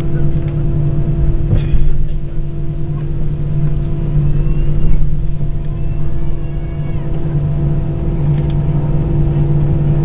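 Airbus A320 cabin with the engines running at a steady pitch: a constant hum made of several held tones, heard inside the cabin before takeoff. A faint tick sounds about a second and a half in.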